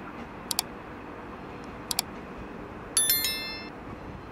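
Subscribe-button animation sound effect: two computer-mouse clicks, each a quick double click, about a second and a half apart, then a bright bell ding about three seconds in that rings out briefly. Under it runs a steady low background noise.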